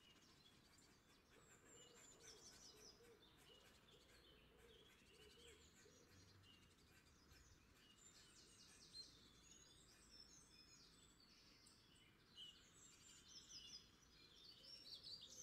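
Near silence, with faint bird chirps now and then, a few more near the end.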